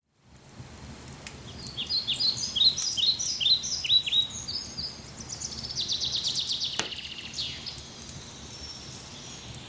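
A songbird singing: a run of quick down-sweeping chirps, then a fast trill about halfway through, over a faint steady background noise.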